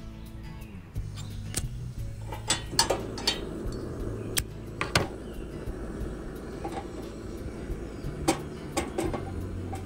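Metal clinks and clicks from handling an aluminium kettle and a Primus gas camping stove: a flip-top lighter is snapped open and lit, the burner lit, and the kettle set down on the pan supports, over soft background music.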